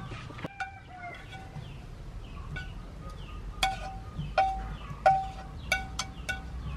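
Repeated clinks of hard objects, each ringing briefly, coming irregularly about ten times, the loudest about five seconds in.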